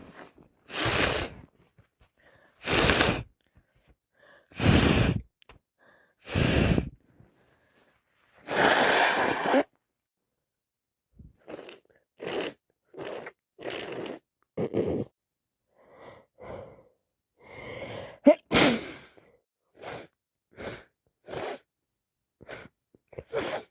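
Repeated sneezing from a person with a head cold. A run of four loud sneezes comes about two seconds apart, then a longer one. After a short pause come quicker, shorter gasping breaths and sneezes, with one sharp, loudest sneeze about eighteen seconds in.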